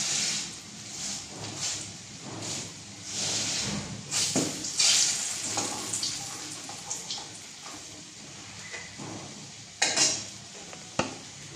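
Wooden spatula stirring and scraping food in a metal kadai on the stove, in repeated strokes, with a light frying sizzle; a couple of sharper knocks of the spatula against the pan near the end.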